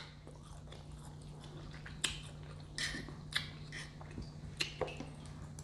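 A person chewing a mouthful of food close to the microphone, with about half a dozen short wet smacks and clicks spread through the few seconds. A steady low hum sits underneath.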